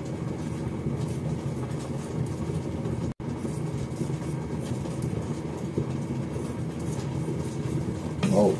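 A steady low background hum or rumble, even throughout, which cuts out for an instant about three seconds in. No distinct knife or board knocks stand out above it.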